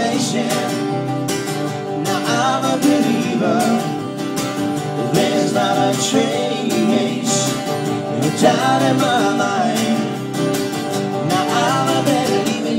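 Live acoustic duo: two acoustic guitars strummed steadily, with male singing into microphones in sung phrases that come and go over the guitars.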